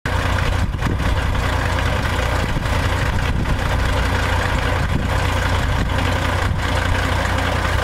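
Diesel engine of a 2005 Peterbilt 379 semi truck idling steadily with a deep, even drone.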